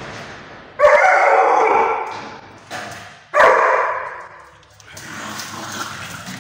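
A dog barking twice: two loud, drawn-out calls about two and a half seconds apart, each trailing off over about a second.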